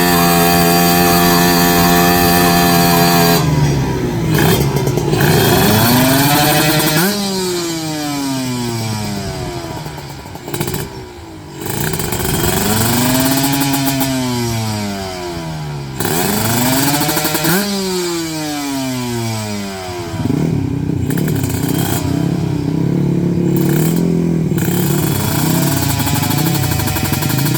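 Two-stroke drag-race motorcycle engines revving hard: a high rev held steady for a few seconds, then repeated blips that rise and fall, some jumping up sharply and dying away in long falling glides.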